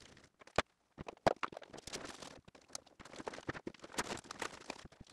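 Camera gear being packed into a padded camera backpack: hard plastic and metal items knocking and clicking against each other, with the rustle of the backpack's nylon and padded dividers.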